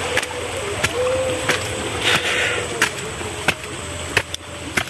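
Footsteps walking on a dirt path, a sharp step about every two-thirds of a second, over a steady background hiss.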